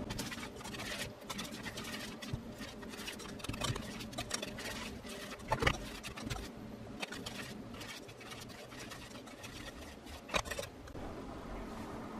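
Wire whisk stirring dry flour mix in a stainless steel bowl: a rapid run of scratchy scraping and ticking as the wires rub the metal, with a couple of louder clinks against the bowl.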